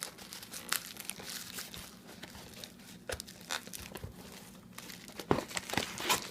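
Packaging being handled and unwrapped by hand: irregular rustling and crinkling with scattered small clicks and taps, a few sharper ones near the end.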